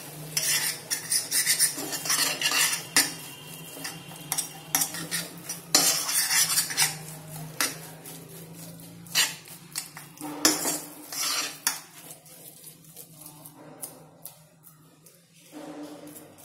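A metal spoon scrapes and clinks against a stainless steel pan, stirring thick grated raw mango pulp. The strokes come quick and irregular at first and thin out over the last few seconds, over a low hum that fades about two-thirds of the way through.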